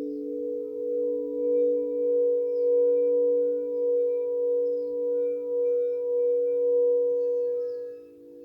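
Quartz crystal singing bowls ringing together in two steady, sustained tones, swelling and fading in slow waves. About eight seconds in, the sound drops and a slightly different low tone carries on.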